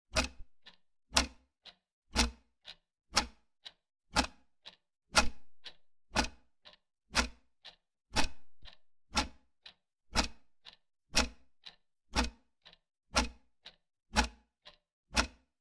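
Clock ticking: a loud tick about once a second, with fainter ticks in between.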